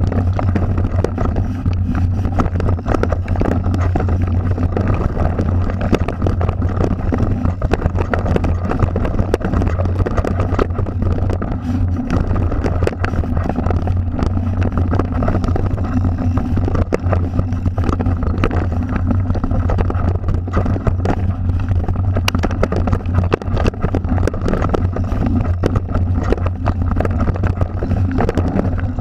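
Mountain bike ridden fast down a dirt singletrack: a constant low rumble from tyres and frame over the ground, dotted with many small rattles and knocks from the bumps.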